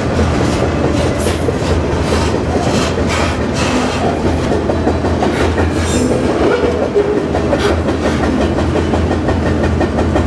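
Double-stack intermodal freight train running at speed, heard from on board a well car. There is a steady low rumble with irregular clicking and clattering from the wheels and cars.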